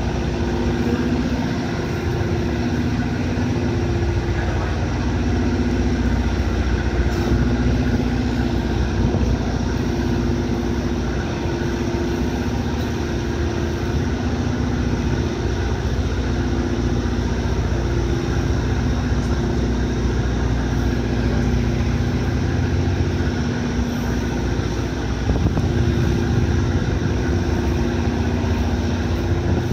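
Passenger ferry Salvia Maru's engines and propellers running while berthing, a steady low drone with a two-note hum that swells and fades every couple of seconds.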